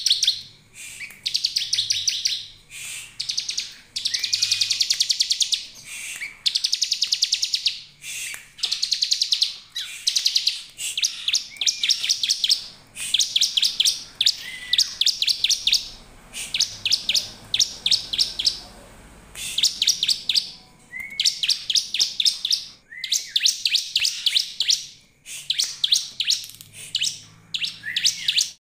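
Bar-winged prinia (ciblek) calling: fast trains of high, rapidly repeated notes, each about a second long, repeated again and again with short breaks. Some trains start with a brief rising note.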